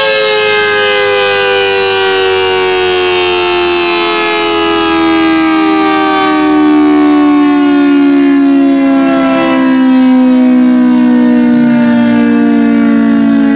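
ACA Hurricane siren winding down: a loud wail of several tones sliding slowly and steadily lower in pitch. It swells louder twice as the rotating horn sweeps past.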